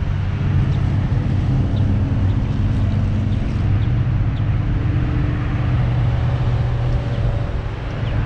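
Road traffic: cars and SUVs driving past on a multi-lane road, with a steady low rumble of engines and tyres.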